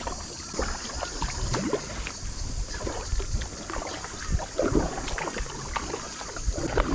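Kayak paddle strokes dipping and splashing in the water, an irregular series of splashes about once a second.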